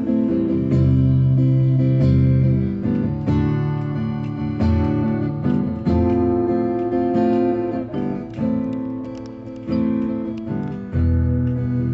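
Acoustic guitar strummed in chords, instrumental with no singing, the chord changing every second or two.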